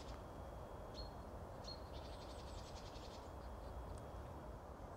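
Faint woodland birdsong: two short, sharp high calls followed by a rapid trill lasting about a second, over a steady low rumble of outdoor background noise.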